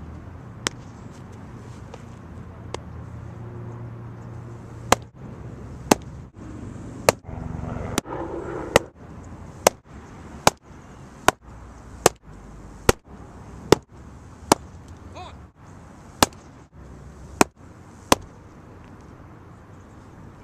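A baseball smacking into a leather catcher's mitt again and again: sharp pops, irregular at first and then coming about once a second through the second half.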